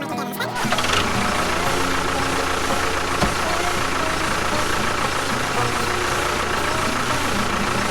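A motor running steadily with a rough, even noise and a faint steady whine. It starts about half a second in and runs over background music.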